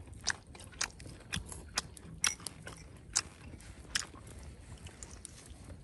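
Someone chewing charred grilled pork sausage close to the microphone: irregular crisp crunches and mouth clicks, about a dozen over a few seconds.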